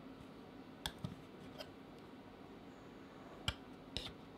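Handling noise from a vinyl Funko Pop figure and its clear plastic display stand being turned and set down on a desk: about five small sharp clicks and taps, the loudest about three and a half seconds in, over a faint steady hum.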